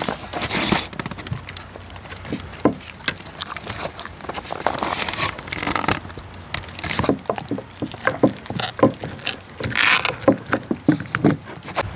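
Siberian husky gnawing a raw cow marrow bone: its teeth crunch and scrape on the bone and meat in quick, irregular clicks.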